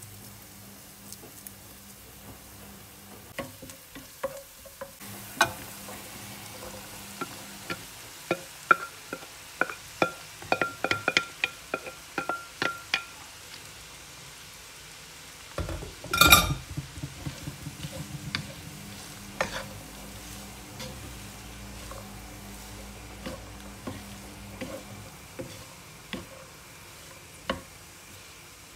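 Food frying in a nonstick pan, stirred and turned with a wooden spatula: a low sizzle under many short scrapes and taps, with one loud clatter about sixteen seconds in.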